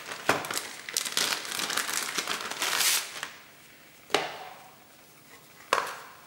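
Clear plastic resealable bag crinkling for about three seconds as it is opened and a cloth helmet dust cover is pulled out, followed by two sharp taps.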